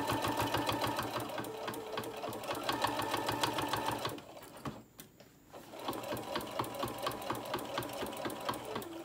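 Electric sewing machine stitching slowly through thick layers of cotton fabric and batting, its needle ticking fast and evenly. It stops a little past the middle for about a second and a half, then starts stitching again.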